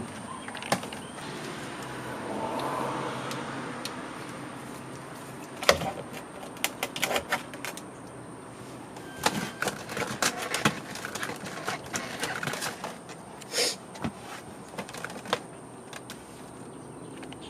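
Irregular clicks, taps and knocks of plastic trim and shifter parts being pried loose and handled, with some rustling. One sharp knock about six seconds in is the loudest, and the clicks come in quick clusters later on.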